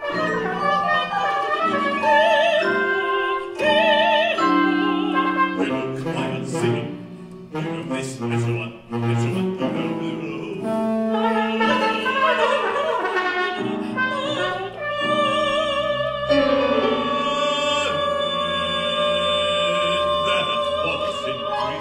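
Contemporary chamber-ensemble music: a busy run of short, separate notes from mixed winds, brass and strings, with wavering vibrato lines. About sixteen seconds in it settles into long held notes.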